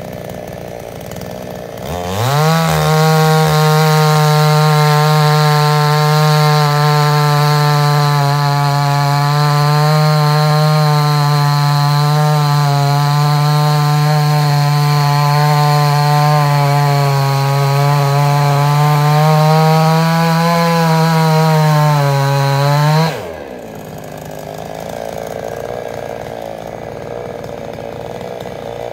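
Gas chainsaw engine revving up about two seconds in, running at high speed for about twenty seconds with slight wavering in pitch, then dropping suddenly back to a low idle.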